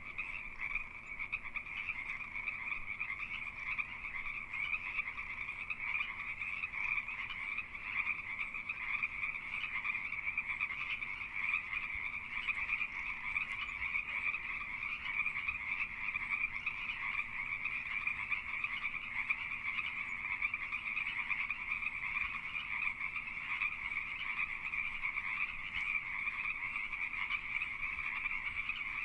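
A dense chorus of many Pacific tree frogs calling at once in mating season, their two-part croaks overlapping into a continuous din with no pauses.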